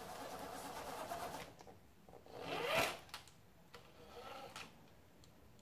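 Axial RR10 Bomber 1/10 RC rock racer's electric motor and geared drivetrain whirring in three short bursts as it is driven over a step, the loudest in the middle with its pitch rising then falling as the motor revs up and back down.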